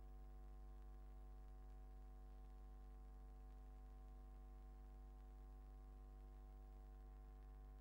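Near silence with a steady low electrical hum and its overtones, unchanging throughout.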